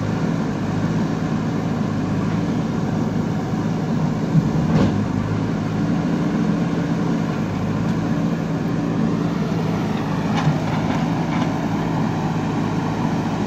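JCB backhoe loader's diesel engine running steadily at an even pitch, with a couple of short knocks as the machine works its front bucket over rocky ground.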